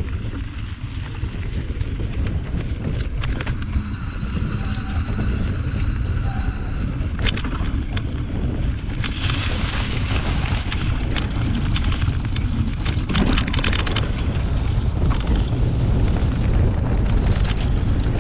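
Wind buffeting the microphone over the low rumble of a mountain bike's wide 29+ tyres rolling on a dirt trail, with scattered clicks and rattles from the bike. The noise grows a little louder as the ride goes on.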